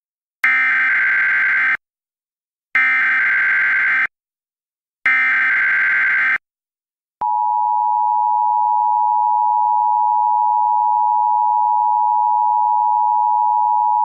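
Emergency Alert System header: three bursts of the SAME digital data tones, each just over a second long with short gaps between, encoding the alert. About seven seconds in, the steady two-tone EAS attention signal begins and holds, announcing that an alert message follows.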